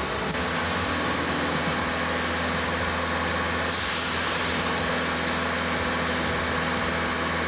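Steady road noise of cars driving on a motorway: an even hiss with a constant low hum.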